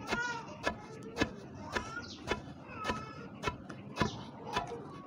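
Long wooden pestle pounding foxtail millet grains in a stone mortar: a steady, even knock about twice a second, the grains being pounded to loosen the husk before cooking.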